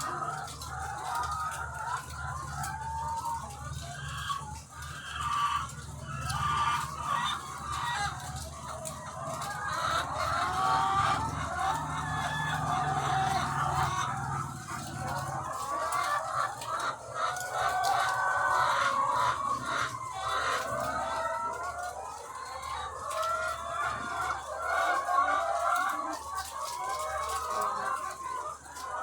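A large flock of egg-laying hens clucking and calling all at once, many overlapping voices forming a continuous chorus.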